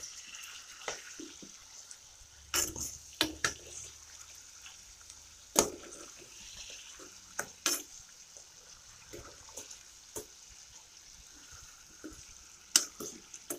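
A cooking utensil knocking and scraping against a frying pan at irregular moments as chicken pieces with onions are stirred and turned. Under it runs a faint steady sizzle of the chicken frying in oil.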